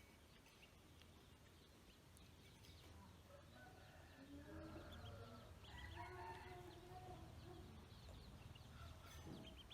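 Ducklings peeping faintly in short high chirps. From about a third of the way in, lower pitched calls from adult fowl join them.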